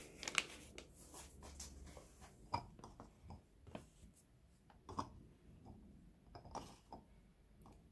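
Faint handling noise: a paper flour bag rustling and knocking as it is held and set down on a table, a dozen or so scattered soft clicks and taps, the loudest about half a second in.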